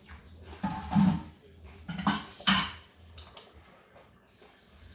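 Eating utensils knocking and clinking against dishes during a noodle meal, three sharp clatters about a second, two seconds and two and a half seconds in.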